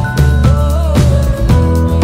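Background music with a steady beat, about two beats a second, under sustained melody notes and a heavy bass.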